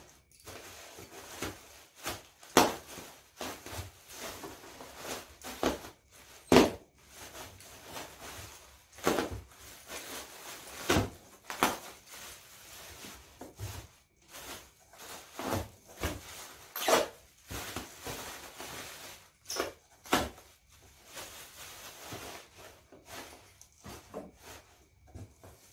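Plastic wrapping crinkling and a cardboard box rustling as a part is unpacked by hand, with irregular knocks and thuds, the loudest a few sharp ones scattered through.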